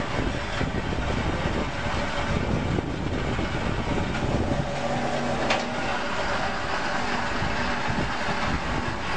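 Electric wire stripping machine running steadily while thin wires are fed through its rollers, with a single sharp click about halfway through.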